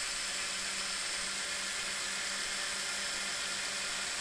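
Small electric motors of a Mould King brick crane model running steadily through worm gears, extending the outrigger beams, with an even whirring hum.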